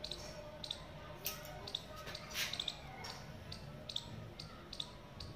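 Hand scissors snipping hair: about eight short, sharp snips at irregular intervals.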